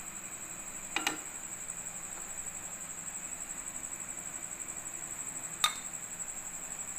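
Kitchen utensils clinking against a metal cooking pot: a quick double clink about a second in, then a single sharper clink near the end, over a steady high-pitched whine.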